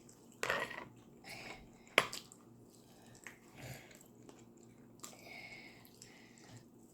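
Close-miked chewing and biting of food, in short scattered bouts, with one sharp click about two seconds in.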